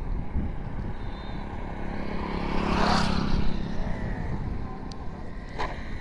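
A vehicle passing by, its engine and road noise building to a peak about three seconds in and then fading, over steady wind rumble on the microphone.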